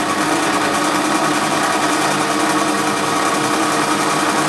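Small metal lathe running steadily, its motor and collet-chuck spindle turning at speed with an even whine made of several tones.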